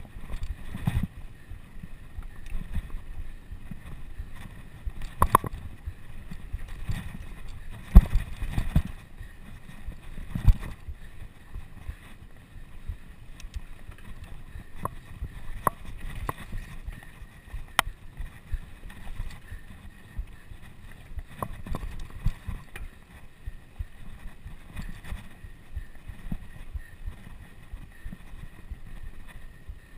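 Wind buffeting a bicycle rider's camera microphone over a steady rumble of tyres on the road, at race speed, with a few sharp knocks and clicks, the loudest about 8 seconds in.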